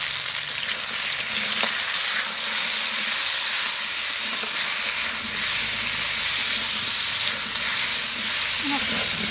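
Cubed vegetables and chilli paste sizzling in hot oil in an aluminium kadai, stirred with a flat metal spatula that scrapes and clicks against the pan. The sizzle is a steady hiss throughout.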